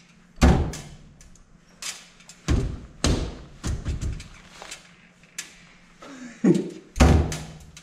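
A backpack being shoved and pushed into a coin locker where it barely fits: a series of thumps and knocks against the locker and its door. The loudest come about half a second in and again near the end.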